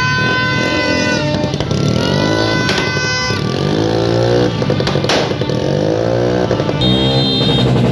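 New Year's Eve street din. A long horn blast cuts off about a second in, then engines rev up and down, which sounds like motorcycles being revved for noise. Sharp firecracker bangs come twice, and a high steady horn tone sounds near the end.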